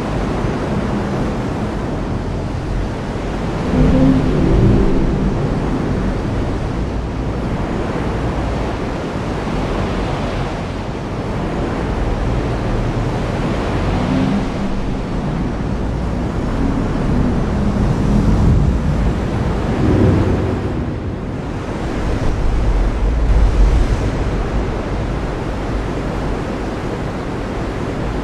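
Heavy rain falling steadily, a dense even hiss. Low rumbles of thunder swell and fade several times, the strongest about 4 seconds in and again around 20 and 23 seconds.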